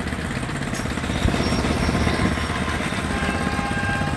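Engine idling steadily with a rapid low pulsing. A steady higher tone sounds for about a second near the end.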